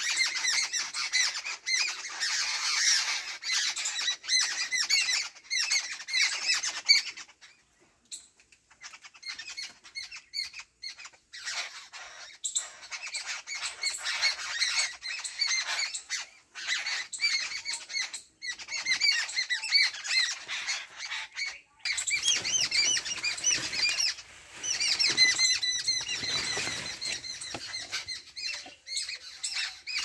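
Rapid, overlapping chatter of many short high-pitched chirps and squeaks from small animals, thinning out about eight seconds in and coming back strongly after about twenty-two seconds. Rustling of leaves can be heard under it near the end.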